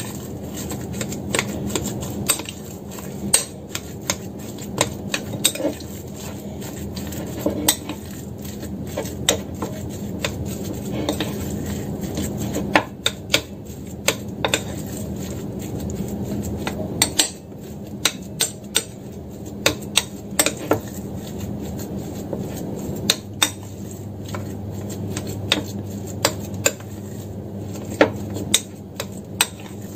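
Metal spoon stirring minced cuttlefish paste in a porcelain bowl, clinking against the bowl's side again and again at an uneven pace. A steady low hum runs underneath.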